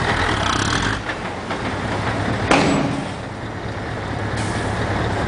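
Scania 143's V8 diesel running steadily while its tipper body is raised and sugar beets slide out of it onto the heap, with one sharp knock about two and a half seconds in.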